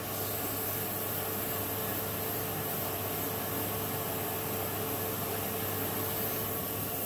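Vacuum cleaner running steadily with a low hum, drawing air through a vacuum-forming table to pull the plastic sheet down over the mould.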